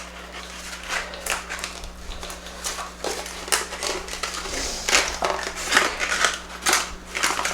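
Handling noise: crinkling and rustling with many irregular clicks and knocks, as something stuck is worked at by hand.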